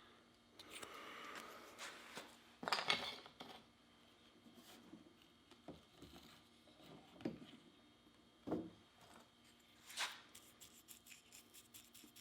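Faint handling sounds on a workbench: a short rubbing or scraping, then scattered light knocks and clinks of tools and objects being picked up and set down.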